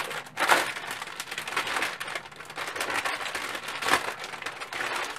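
Clear plastic packaging crinkling and crackling loudly as it is handled and opened by hand, a dense run of crackles throughout.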